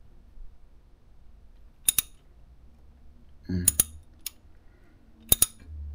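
A wrench clicking and clinking against the valve adjuster lock nut of a GY6-clone scooter engine while it is fitted to crack the nut loose: four short bursts of sharp metallic clicks, some in quick pairs, with a dull knock just before the second burst.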